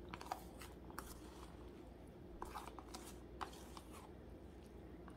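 Faint scattered rustles and light clicks of fingers scraping chopped onion, tomato and coriander out of a plastic tub into a glass bowl of raw minced beef.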